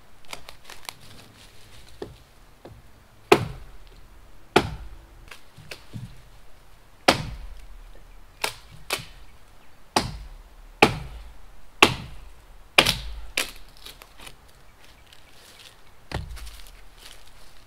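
Axe chopping wood: about a dozen sharp strikes at an uneven pace, some close together and some a second or more apart.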